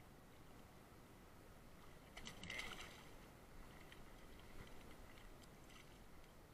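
Near silence, broken about two seconds in by a short splash of water, then a few faint splashes and ticks, as a hooked trout thrashes in the shallows while being landed.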